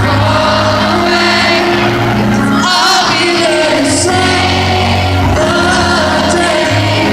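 Live pop performance: an amplified band with held bass notes and chords under a male lead vocal, recorded from the audience at poor sound quality.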